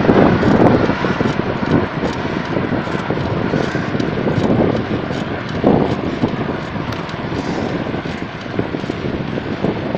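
Wind rushing over the microphone of a phone carried while cycling, a steady noise that surges in gusts, strongest just after the start and again about six seconds in.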